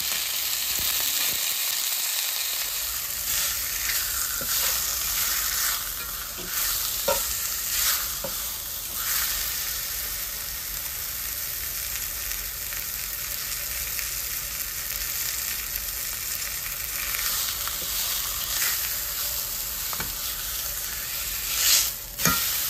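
Thin steak searing in very hot olive oil in a cast-iron skillet: steady sizzling with scattered small pops. Near the end there is a brief louder noise as the steak is lifted from the pan to be flipped.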